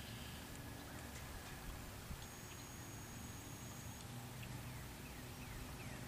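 A chorus of frogs calling in low, pulsing notes, with a few faint, short, falling bird chirps near the end.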